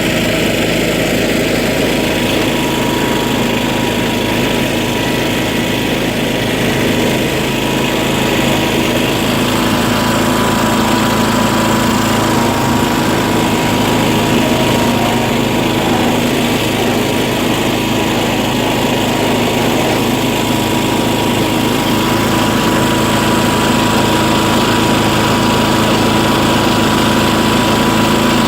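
Engine of a small off-road vehicle running steadily, with a held whine, a little louder after about ten seconds.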